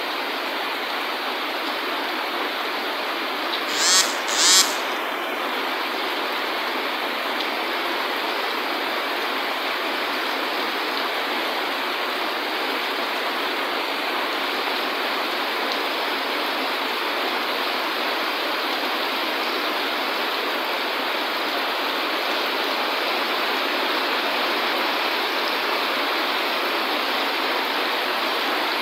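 Heavy typhoon rain pouring down steadily in an even, dense hiss, with two brief loud noises close together about four seconds in.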